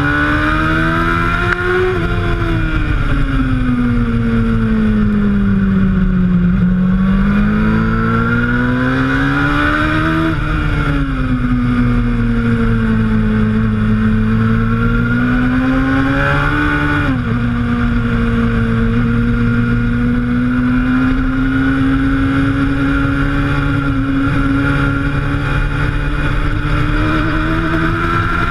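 Suzuki GSX-R750 K1 inline-four sportbike engine under hard track riding. The note rises, then falls for several seconds as the bike slows for a corner. It then revs back up through the gears, with sharp drops at upshifts about ten and seventeen seconds in.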